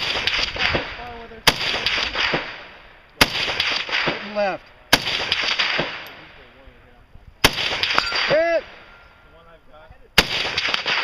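Rifle shots fired at a slow, uneven pace, six in all, each a sharp crack followed by a long echo off the quarry walls.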